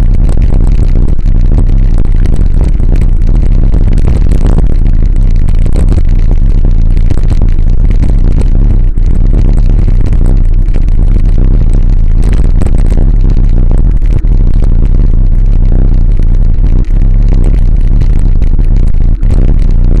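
Loud, steady rumble of wind buffeting the microphone of a camera mounted on a moving bicycle. Frequent knocks and rattles come through as the bike rolls over rough, cracked asphalt.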